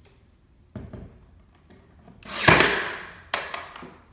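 Ryobi 18-gauge cordless brad nailer firing once about two and a half seconds in: a short build-up into a sharp shot with a ringing tail, driving a 2-inch brad through the poplar board into the 2x4 behind it. A light knock comes about a second in, and a click follows the shot.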